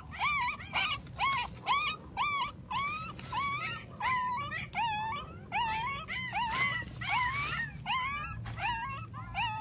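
Puppies crying in distress: a steady run of short, high-pitched whimpering cries, about two a second, each rising and then falling in pitch.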